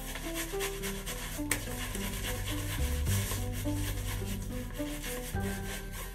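A white sock being rubbed over a bearded face to work shaving cream into a lather, a continuous scratchy rubbing, under background music with a bass line.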